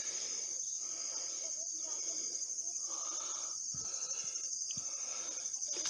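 Steady high-pitched chorus of insects, an even shrill buzz that does not let up.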